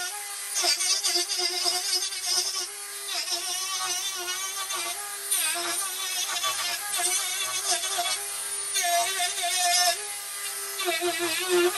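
Dremel rotary tool with a carving bit cutting small texture cuts into wood, its high motor whine dipping in pitch again and again as the bit bites in and then recovering.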